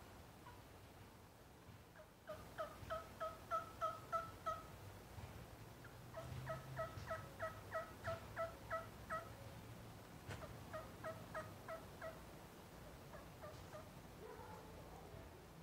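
Turkey yelps blown on a bocote-wood trumpet turkey call made by Mark Prudhomme. Three runs of evenly spaced yelps come at about three to four a second, the middle run the longest and the last one fainter.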